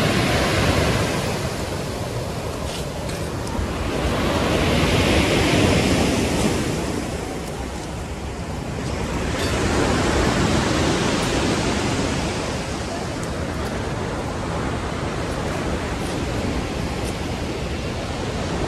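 Rough sea surf breaking on a beach: a loud, steady rushing that swells twice as waves come in, mixed with wind noise.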